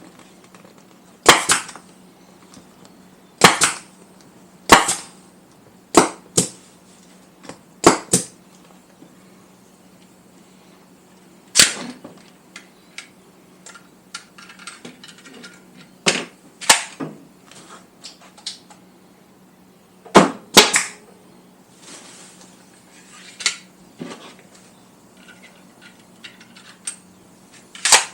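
Harbor Freight nail gun firing staples into a motorcycle seat to hold the new cover down. It makes about a dozen sharp snaps, spaced irregularly and some in quick pairs, with faint handling of the material between shots.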